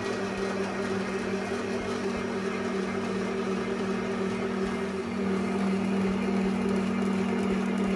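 Morphy Richards electric spiralizer's motor running with a steady hum while a courgette is pressed through its blade and cut into spirals. It gets a little louder about five seconds in.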